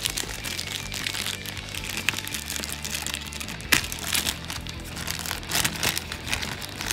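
Clear plastic bag crinkling and crackling as it is handled and an external hard drive is slid out of it, with one sharper crackle about halfway through. Background music with low held notes plays underneath.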